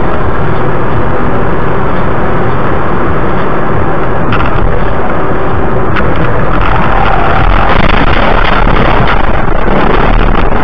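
Loud, steady rush of road and wind noise from a car driving at highway speed, picked up by a dashboard camera inside the cabin, with a couple of short clicks about four and six seconds in.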